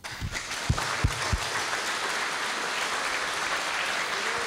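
Audience applauding, starting at once and holding steady, with a few low thumps in the first second and a half.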